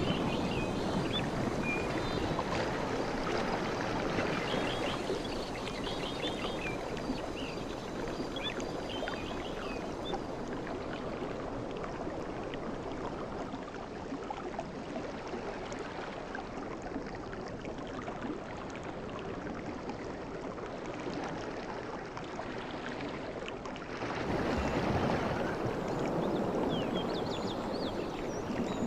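Sea waves washing onto a beach: a steady rushing and gurgling of surf that grows louder again about 24 seconds in.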